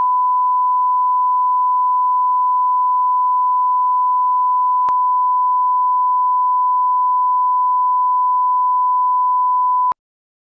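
Bars-and-tone line-up tone: one steady, loud, pure test tone, with a faint click about halfway through, cutting off suddenly near the end.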